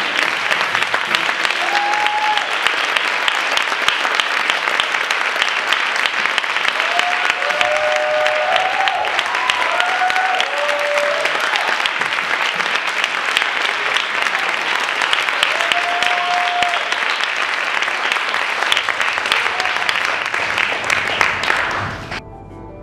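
An audience applauding, with a few scattered cheers and whoops over the clapping. The applause stops abruptly near the end.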